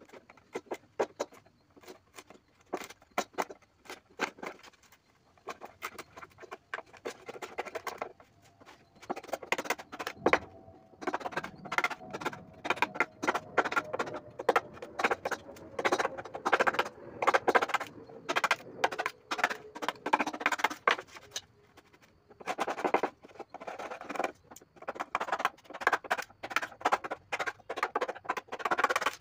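Hammer striking a chisel to break out the thin plywood strips left between saw cuts: a quick, uneven run of sharp wooden knocks and cracks, with a short pause about three quarters of the way through.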